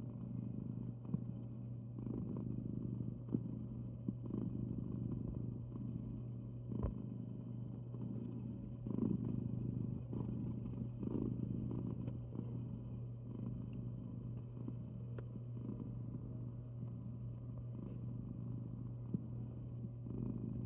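Calico cat snoring loudly, a rough breath sound repeating about once a second, over a steady low hum.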